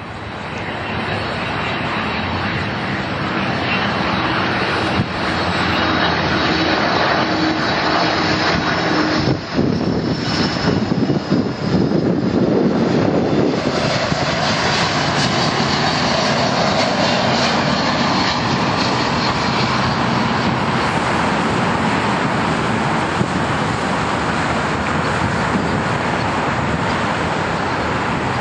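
Airbus A300F4-605R freighter's twin jet engines on low final approach and landing: a loud, steady jet noise, with a held droning tone for roughly the first nine seconds as it passes close by.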